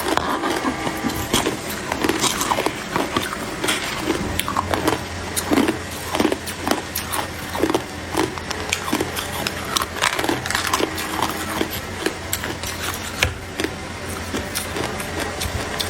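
Close-up crunching of ice being bitten and chewed, in rapid irregular cracks and crunches.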